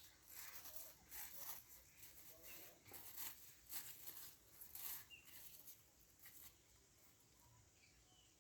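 Faint farmyard ambience: a quick run of soft scuffing or rustling noises over the first five seconds, then a few faint, short, high chirps as it grows quieter.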